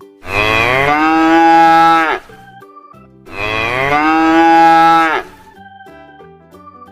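Cow mooing twice: two long moos of about two seconds each, about a second apart, each falling in pitch at the end, over faint background music.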